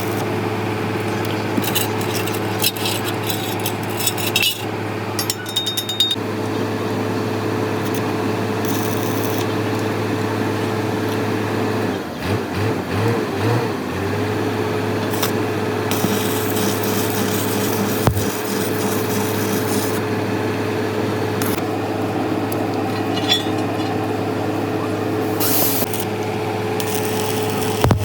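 A steady machine hum from workshop equipment, which dips and wavers for a couple of seconds about halfway through as if briefly loaded. Scattered clicks and taps of tool work sound over it.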